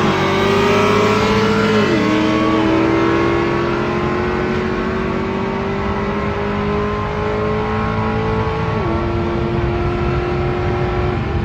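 A G80 BMW M3 Competition and a cammed C6 Corvette LS3 racing side by side at full throttle, heard from inside the M3's cabin. The engine note climbs steadily, with two quick upshifts, about two seconds in and again near the end.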